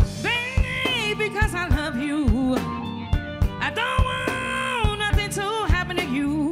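Live electric blues band: a woman singing with vibrato, holding one long note about halfway through, over electric guitar, bass and drums keeping a steady beat.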